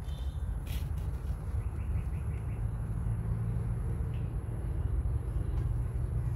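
Outdoor ambience: a steady low rumble with a faint, steady high whine, and a few faint high chirps, including a quick run of about six chirps around two seconds in.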